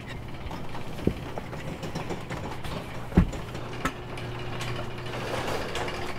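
A few sharp mechanical clicks and knocks over a steady low hum, the loudest knock about halfway through. A faint steady tone joins about two-thirds of the way in.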